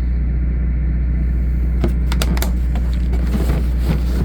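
A steady, loud low drone, like a running engine, with a few sharp clicks and rattles about halfway through and near the end, as of metal tool-chest drawers and tools being handled.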